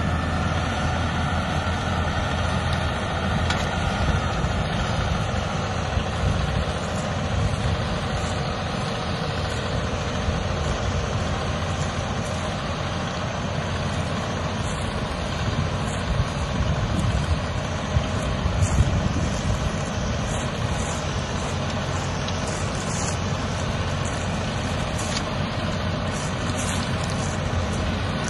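Massey Ferguson 4707 tractor's diesel engine running steadily under load while it pulls a disc harrow across a sandy field.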